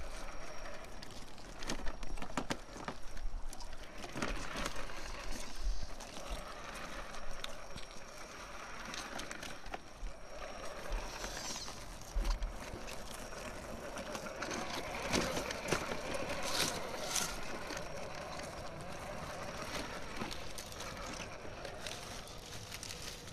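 Electric scale RC crawler truck driving over rock: a faint motor and gear whine, with the tyres scraping and knocking on the stone, clusters of knocks in the first few seconds and again midway. A stream trickles behind.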